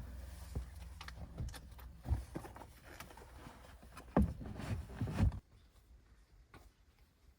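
Handling noises of gear being moved around a car: rustling and several dull knocks and thumps over a low hum. The knocks are loudest about four to five seconds in, and everything goes quiet about five and a half seconds in.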